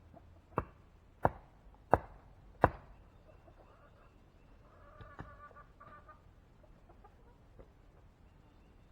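Four sharp strikes, evenly spaced less than a second apart, followed about five seconds in by chickens clucking.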